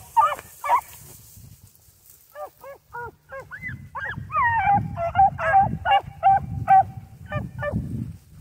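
A pack of young beagle hounds giving tongue with short yelps and choppy bays while working a scent line through dry grass. There are a few calls at first, a short lull, then the voices build into a fast string of chop notes from several dogs.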